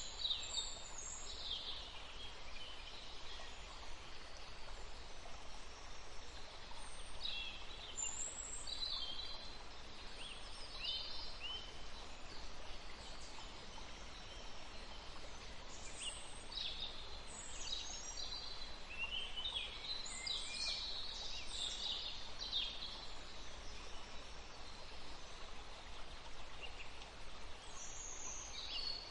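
Several songbirds chirping and trilling in short, high phrases, scattered and overlapping, over a steady hiss of forest ambience.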